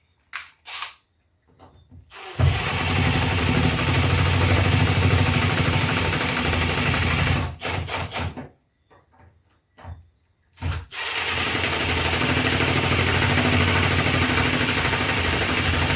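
Power drill driving the screws that fasten a light switch. Its motor runs steadily in two long runs of about five seconds each, the second starting about halfway through, with short clicks and knocks from handling before and between them.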